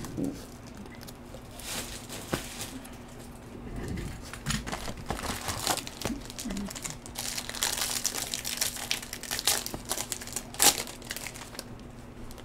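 Wrapper of a Topps Chrome baseball card pack crinkling and tearing in the hands in irregular bursts, with the sharpest crackle about ten and a half seconds in.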